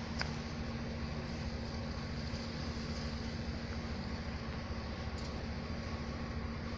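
Steady outdoor background noise: a low rumble under a steady hum, with a faint click just after the start.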